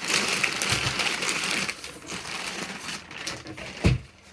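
Packaging being torn open and handled, a crinkling rustle that eases off after about two seconds, then a single thump near the end.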